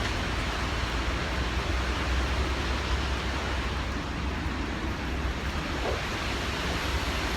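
Steady rushing wind noise on the microphone, with a heavy low rumble.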